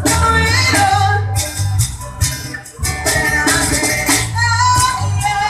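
Street musicians playing live: a vocalist sings a wavering melody over a band with a steady bass line and a bright rattling percussion rhythm.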